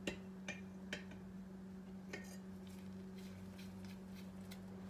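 Light clicks and clinks of small culture vials and their plastic caps being handled in a test-tube rack: a few sharp ones in the first second, then fainter ticks, over a steady low electrical hum.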